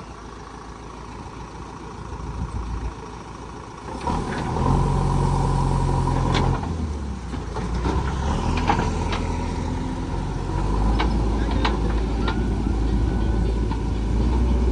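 A vehicle's diesel engine, low for the first few seconds, then running loud and steady from about four seconds in, its pitch and load shifting a couple of times. A few short sharp knocks are heard in the second half.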